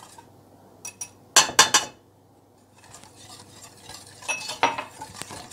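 Wire whisk clinking and scraping against a stainless steel pot, beating cornstarch into egg yolks, sugar and milk. A quick cluster of sharp metal clicks about a second and a half in is the loudest, and more clinks come near the end.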